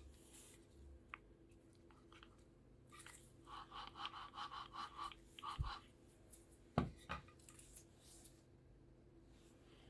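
Faint hand-work noises from taking apart an e-bike motor. About a third of the way in comes a quick run of short, evenly repeated sounds, about six a second, like a tool working a fastener. A few sharp knocks follow, the loudest just after the middle, like metal parts being set down or tapped, over a steady low hum.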